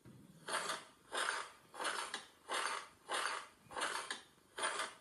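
Bed springs creaking in a steady rhythm as someone bounces on a bed, seven creaks about two-thirds of a second apart.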